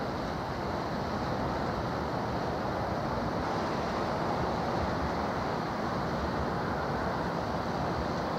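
Steady outdoor rushing noise: wind buffeting the microphone over the wash of choppy water.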